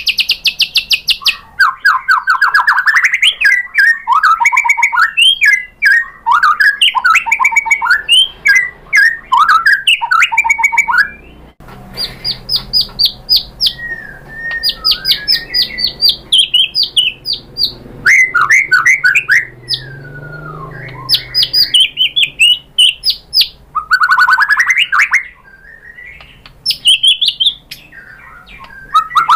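White-rumped shama (murai batu) singing a long, varied song of rapid trills, chips and repeated whistled notes in fast phrases with short pauses between them, with imitated calls of other birds (isian) woven in.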